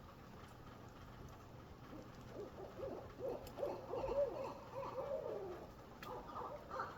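An animal calling: a rapid run of short, wavering, arching hoots that starts about two seconds in and grows louder, with a fresh burst near the end.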